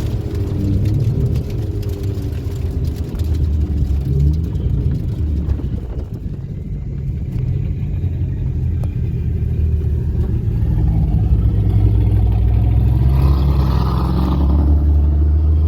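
BMW N54 twin-turbo inline-six engine running as the car drives, a low drone whose pitch shifts with the throttle and grows louder in the last few seconds.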